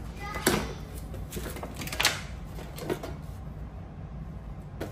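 Three sharp knocks and clicks of kitchen items and cutlery being handled and set down, with smaller taps in between, over a steady low hum.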